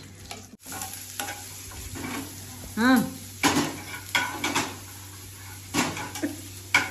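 Oil sizzling in a frying pan on a gas stove while a steel spatula stirs it, clinking and scraping against the pan several times. A short hummed note that rises and falls in pitch comes about three seconds in.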